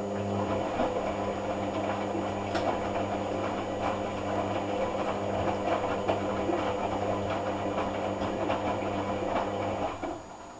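Hoover AC166 Classica 1200 automatic washing machine running a cotton rinse: its motor hums steadily with scattered clicks and rattles, then stops about ten seconds in.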